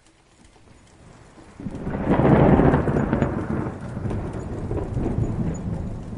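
Rolling thunder with no rain: a low rumble swells in about a second and a half in, is loudest shortly after, then rumbles on and slowly fades.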